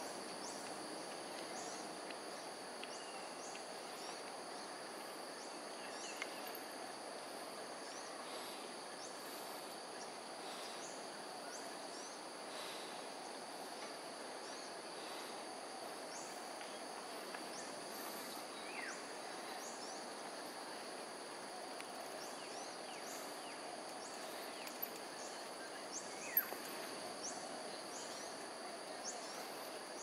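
Steady high insect drone, like crickets, over an even low background hum. Short high chirps are scattered through it, and a few sharp clicks come near the end.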